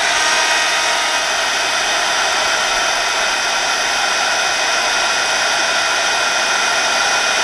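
Small handheld heat gun running steadily: a constant blowing rush of fan and air with a faint steady whine. It is heating a battery's temperature probe.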